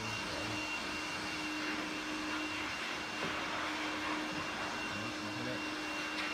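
Steady drone of workshop machinery running, an even rushing noise with a constant low hum and a faint high whine through it.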